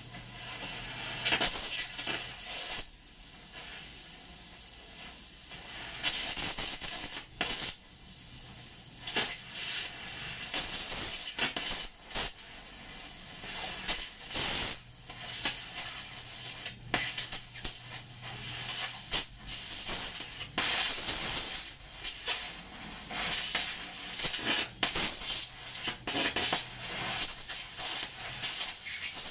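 Oxy-fuel cutting torch hissing as it cuts through a rusty steel plate, with uneven crackling and spitting from the molten metal at the cut.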